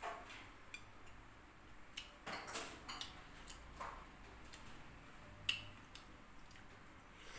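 Eating sounds: fingers picking through saucy duck adobo and rice on a plate, with soft scrapes and scattered light clicks against the plate, and a sharper click about five and a half seconds in.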